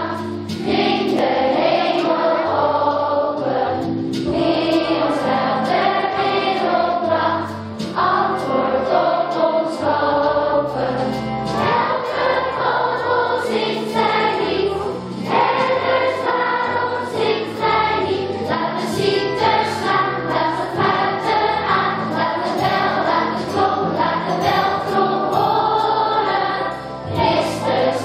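Children's choir singing a song with instrumental accompaniment.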